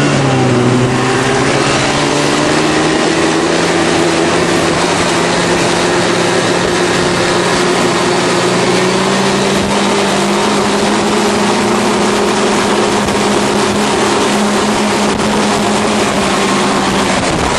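A vehicle engine running at a steady pitch under constant throttle while driving through deep snow, with a hiss of snow spray beneath it.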